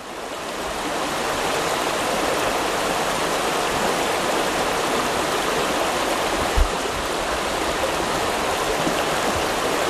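Shallow river rushing and splashing over stones, fading in at the start and then running steadily. A brief low thump about six and a half seconds in.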